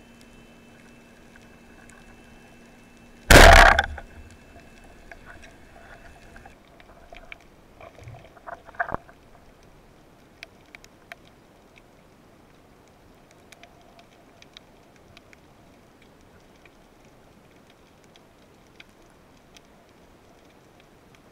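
Underwater ambience picked up by a camera on a speargun: a low hiss with scattered sharp clicks and crackles, and a faint steady hum that stops about six seconds in. About three seconds in there is one very loud, short burst of noise, the loudest thing heard.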